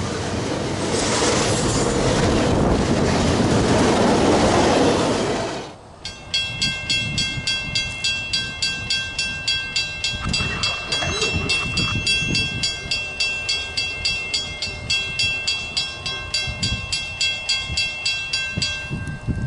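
Double-stack intermodal freight cars rolling past close by, wheels on rail, cutting off suddenly about six seconds in. Then a grade-crossing warning bell rings steadily, about three to four strokes a second, with the gates down for an approaching train.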